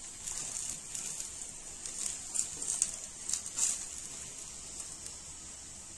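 Ghee sizzling on a hot tawa under a paratha, with a steel spoon scraping over it as the ghee is spread. Several sharp spoon clicks come between about two and four seconds in.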